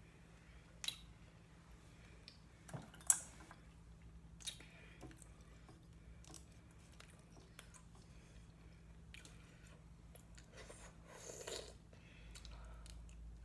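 Close-up eating sounds of shrimp and mussels in buttery garlic sauce: wet chewing and squishing with scattered sharp clicks, the loudest about three seconds in.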